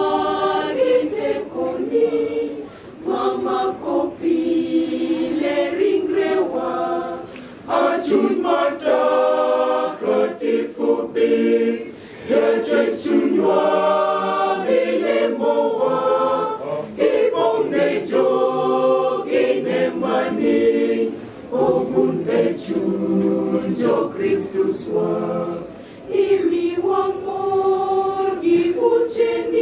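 Church choir of religious sisters and brothers singing a hymn in parts, unaccompanied, in long phrases with brief pauses for breath between them.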